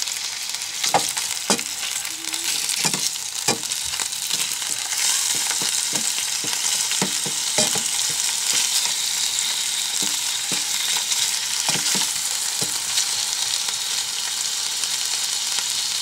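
Meatballs sizzling steadily in a frying pan. A wooden spoon knocks and scrapes against the pan as they are stirred, with many short knocks over the first two thirds.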